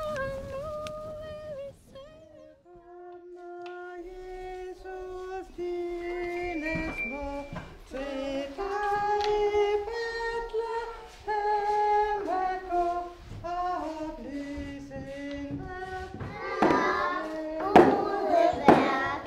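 Children and a woman singing a slow, simple song together, one held note after another. Near the end it gets louder and fuller, with a few knocks.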